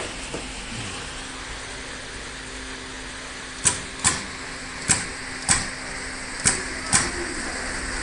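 TFP-1.5SC wire stripping and terminal crimping machine cycling: six sharp mechanical clacks in three quick pairs, starting about halfway through, over a steady low hum and hiss.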